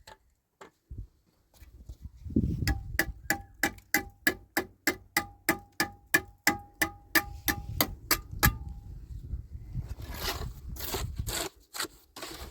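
Hammer blows on metal, about twenty in quick, even succession at three to four a second, each with a short metallic ring. A rough scraping sound follows near the end.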